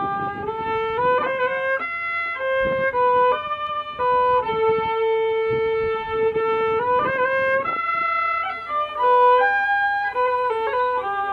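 Title music: a solo fiddle playing a slow melody, holding each note for about half a second to a second and a half and sliding between some of them.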